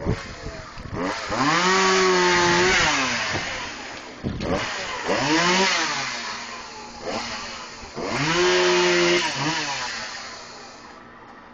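Two-stroke chainsaw revved up to full throttle three times, each burst holding a steady high pitch for a second or two before dropping back toward idle.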